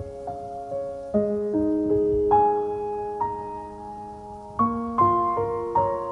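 Background piano music: a slow, gentle melody of struck notes and chords, each ringing out and fading before the next.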